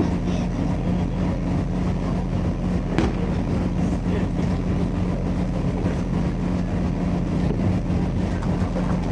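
Steady low engine-like drone with a constant hum, and a single sharp crack about three seconds in.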